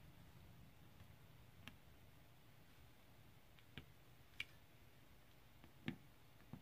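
Faint, scattered clicks of a diamond-painting drill pen picking square resin drills from a plastic tray and pressing them onto the canvas: about five ticks, the loudest near the end, over a low room hum.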